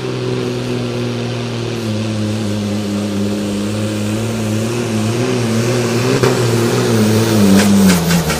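Super Sport pulling tractor's diesel engine running loud with a deep, wavering note, its pitch climbing late on and then dropping about eight seconds in. A few sharp cracks come near the end.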